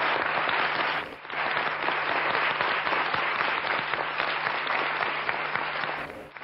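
Studio audience applauding: dense, steady clapping from many hands, with a brief dip about a second in, over a faint low hum.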